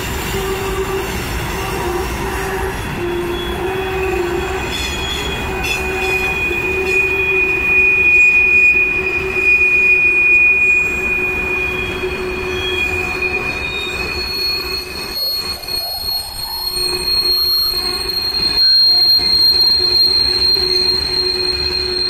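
Train rolling past with its wheels squealing against the rails: a steady low tone under shrill squeals. One high squeal holds for several seconds, then a higher one takes over in the second half.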